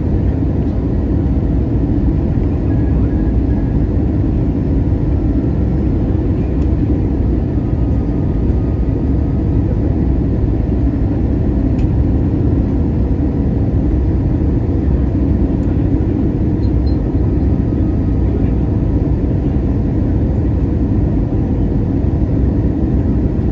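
Steady cabin roar of an Airbus A320's CFM56-5B turbofan engines and rushing airflow, heard from inside the cabin beside the wing on final approach to landing.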